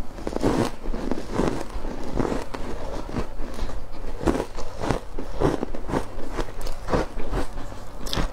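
Close-miked biting and crunching of ice cubes coated in matcha powder: a steady run of irregular crunches as the ice is bitten and chewed.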